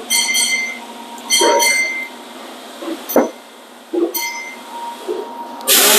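A series of short, high-pitched squeaks, then a sharp click about three seconds in. Near the end comes a loud hiss from an aerosol spray, a can of WD-40 being sprayed onto engine parts.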